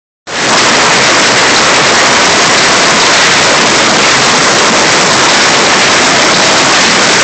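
Heavy hail mixed with rain pelting pavement and parked cars: a loud, dense, steady hiss of countless small impacts.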